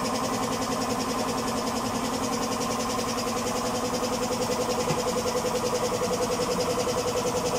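Homemade used-oil burner stove running under a pot: a steady hum with a fast, even pulsing, growing a little louder about halfway through.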